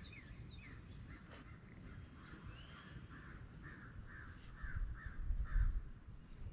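Birds calling over and over, a run of short harsh calls about three a second, over a low rumble, with a few dull bumps about five seconds in.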